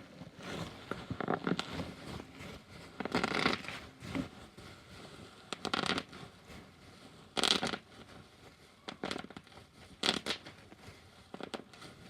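Bubble wrap popping: irregular sharp pops and short crackly bursts a second or two apart, the loudest about seven and a half seconds in.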